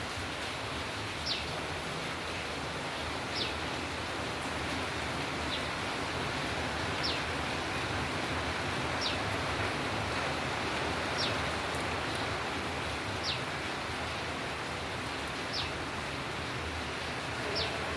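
Steady hiss of falling rain, with a short, high, falling chirp repeating about every two seconds.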